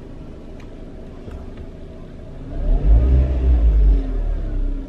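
Car engine idling, then revved about two and a half seconds in, its pitch rising and falling back, heard from inside the cabin. The automatic gearbox is in drive but the car will not move forward: the transmission is not engaging.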